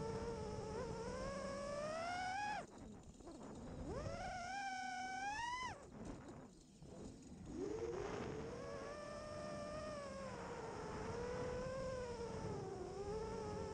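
5-inch FPV quadcopter's brushless motors whining, the pitch sliding up and down with throttle. Twice, about three and six seconds in, the whine dips away as throttle is chopped and then rises sharply as it is punched back on.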